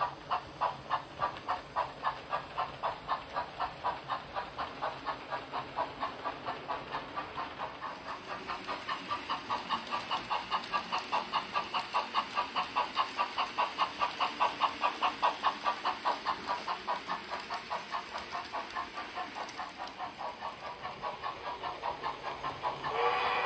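Sound decoder of a Märklin 37970 New York Central Mikado model steam locomotive playing rhythmic steam chuffs, about three a second, with a steady hiss joining in from about a third of the way through. A steam whistle sounds right at the end.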